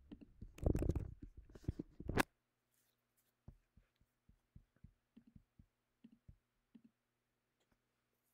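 Mouse or trackpad clicks while working a computer: a burst of rustling and knocks in the first two seconds ending in a sharp click, then about a dozen soft taps over the next four seconds, over a faint low hum.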